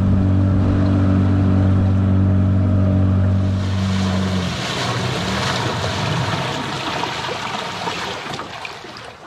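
Tohatsu 9.8 hp two-stroke outboard running steadily under way, heard from aboard the dinghy. After a cut about four seconds in, prop wash and churning water take over as the boat comes alongside, fading toward the end as the engine stalls on going into neutral.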